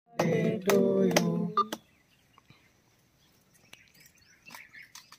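A voice calling out loudly for about a second and a half, then mostly quiet.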